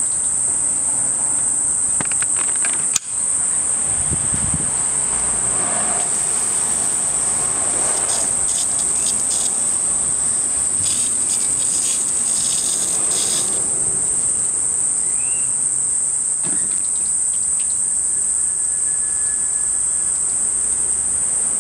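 Insects chirping in one steady, high-pitched, unbroken trill. A sharp click comes about three seconds in, and from about six to thirteen seconds in water from a hose splashes onto the panels.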